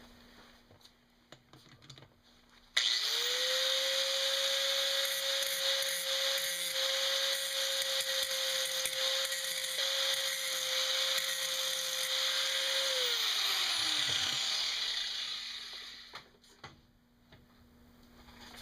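Handheld grinder switched on about three seconds in and spinning up to a steady whine with a loud hiss, cleaning up the metal around a broken weld on an office chair's steel base. It is switched off near the end and winds down with falling pitch.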